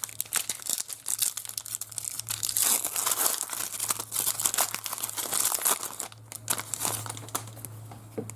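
A trading-card pack wrapper being torn open and crinkled by hand, a dense run of crackling and tearing that thins out about six seconds in, over a low steady electrical hum.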